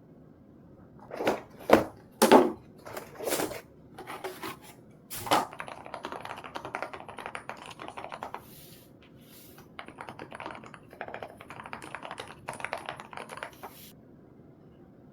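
Typing on a TNT TX108 mechanical keyboard with HMX Sakura silent linear switches and PBT keycaps: a handful of separate keystrokes, then fast continuous typing from about five seconds in until shortly before the end.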